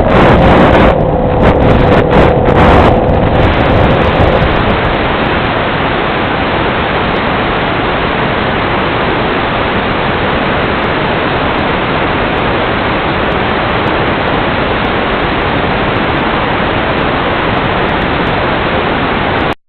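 The model plane's electric motor whine sinks in pitch and dies away over the first few seconds under gusty rushing noise, then a steady, even hiss of static on the FPV audio feed, which cuts off abruptly near the end.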